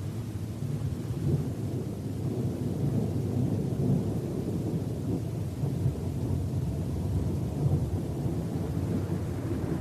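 Low, rolling thunder rumble that swells and eases without sharp cracks.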